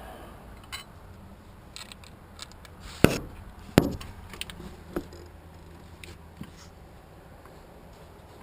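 Scattered sharp clicks and knocks of hand tools and engine parts being handled, the loudest two about three and four seconds in.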